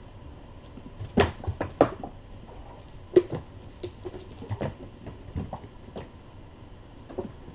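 Kittens playing and climbing: scattered light knocks, taps and rustles, with a quick cluster of knocks about a second in and a sharper one about three seconds in.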